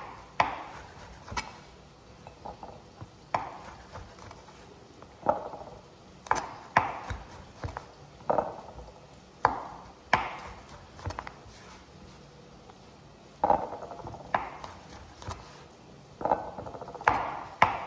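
Kitchen knife slicing button mushrooms into thick slices on a cutting board: the blade knocks on the board at an unhurried, irregular pace, about once a second.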